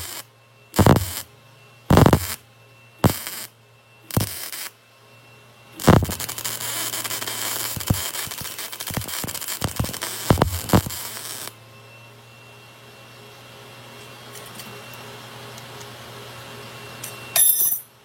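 MIG welder laying welds on a steel billet: four short tack welds about a second apart, then one continuous weld of about five seconds that cuts off, and another short tack near the end, with a low steady hum between.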